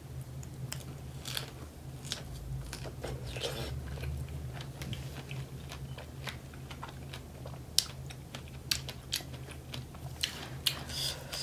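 Biting into and chewing a large fresh strawberry dipped in chocolate, close to the microphone: a run of short wet clicks and smacks from the mouth, over a faint steady low hum.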